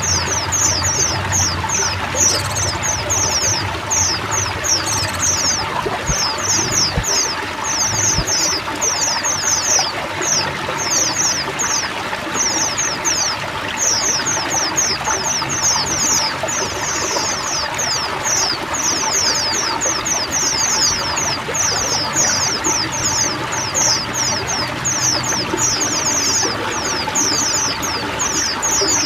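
A flock of white-eyes chattering without pause in rapid, high chirps over the steady rush of running water.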